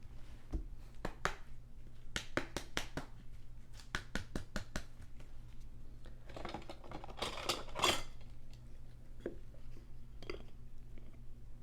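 Small handling noises at a tabletop: a run of light clicks and taps, then a brief rustling scrape about six to eight seconds in, over a low steady hum.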